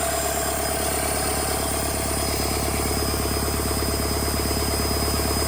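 Freshly rebuilt Doosan D34P four-cylinder diesel engine running steadily, with an even pulse of firing strokes.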